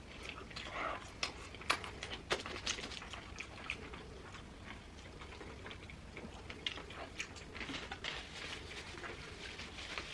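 Close-up eating sounds of people chewing fast food: scattered small clicks, smacks and crackles at an irregular pace.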